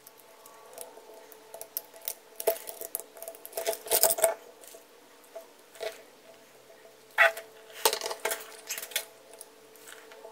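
Irregular small metallic clicks, taps and scrapes: tweezers and a soldering iron tip working against a tiny switch terminal while a broken wire is soldered back on.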